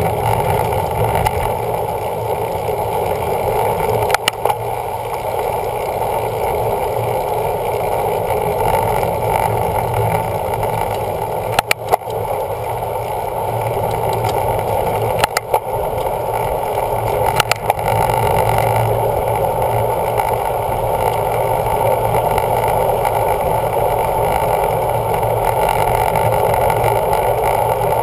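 Steady, muffled rush of wind and road noise on a riding cyclist's camera, with a few sharp clicks about four, twelve, fifteen and seventeen seconds in.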